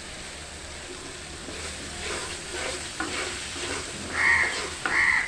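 Thick curry masala paste sizzling as it is fried, stirred and scraped around the pan in repeated strokes, with two louder, ringing scrapes near the end.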